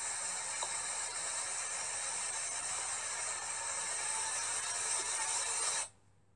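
Steady hissing noise with no words, cutting off suddenly near the end to near silence.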